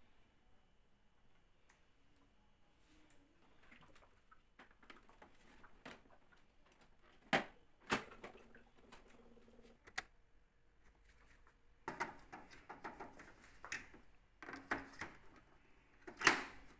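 Plastic panels and parts of a Daikin humidifying air purifier being handled and fitted back into place, with sharp plastic clicks and snaps. There are two clicks about halfway through and another a little later. A stretch of rattling and scraping follows, then a loud snap near the end.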